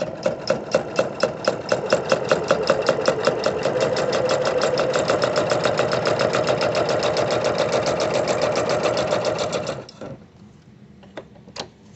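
Singer Quantum sewing machine stitching through several layers of vinyl. It starts slowly, speeds up over the first couple of seconds into a steady fast run of stitches, and stops about ten seconds in, with a couple of single clicks near the end.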